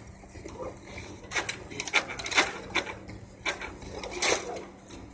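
A metal hand tool worked against a wire fence panel: irregular metallic clinks, scrapes and rattles of the wire, with the sharpest strikes about two and a half and four seconds in.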